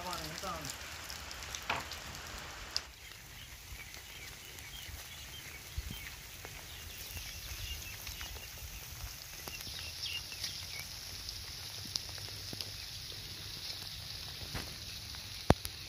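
Steady rain falling for about three seconds, then a sudden change to a quieter outdoor ambience with faint bird chirps and a few scattered clicks.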